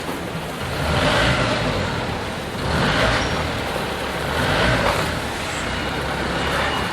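Powdered adhesive (part A) pouring from its bag into a plastic barrel: a rushing hiss that swells and fades about four times as the bag is tipped and shaken.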